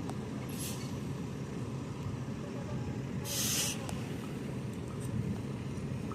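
Heavy vehicle engine running steadily, with a brief hiss of released air about half a second in and a longer, louder hiss about three seconds in.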